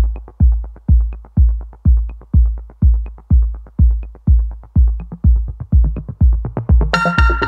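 Background electronic music with a steady kick-drum beat, about two beats a second, with light high ticks; sustained synth chords join in near the end.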